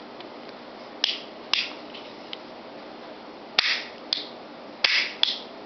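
Sharp metallic clicks from the antique double-barrel pinfire pistol's action, such as its hammers being worked, in three pairs about half a second apart.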